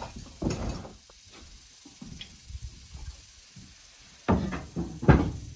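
Knocks and clatter from things being handled at an open wood-fire hearth: a short one about half a second in, then two louder ones near the end.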